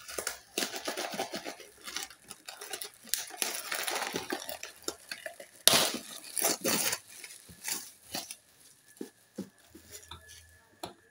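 Clear plastic wrapping crinkling and rustling with irregular sharp crackles and clacks as a new basketball and its plastic hand pump are handled. The loudest crackles come in a cluster about six to seven seconds in, then the noise thins out.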